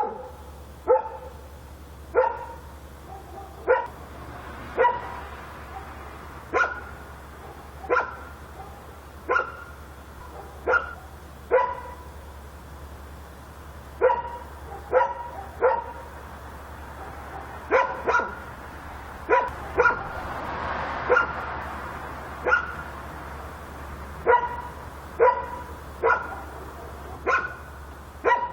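A dog barking repeatedly at night, sharp single barks about one every second or so, with a brief pause partway through. A steady low hum runs underneath, and a soft rushing swell rises and fades a little past the middle.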